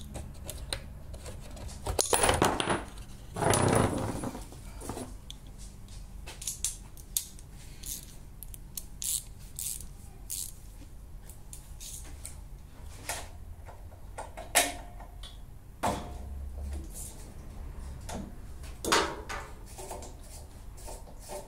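Metal hand tools clinking and rattling as a ratchet and spark plug socket are handled to take the spark plug out of a small lawn mower engine. There are two louder stretches of clatter about two and three and a half seconds in, then scattered light clicks and knocks.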